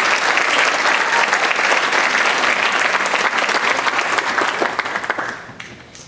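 Theatre audience applauding, a dense patter of many hands clapping that dies away about five and a half seconds in.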